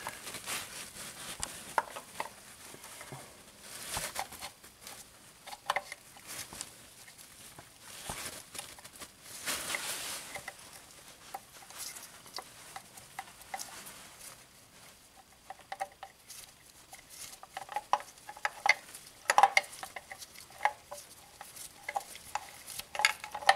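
Scattered light metal clicks, taps and clinks of hand work, with a few brief scraping rustles, as the oil pump housing is worked back onto the front of the engine block over the crankshaft.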